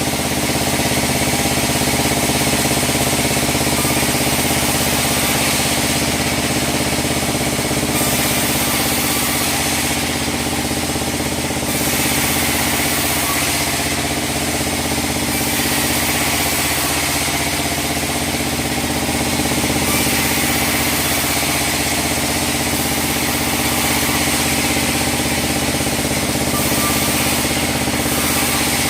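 Band sawmill running steadily while splitting sengon logs: a constant machine hum with a high hiss that rises and falls every few seconds.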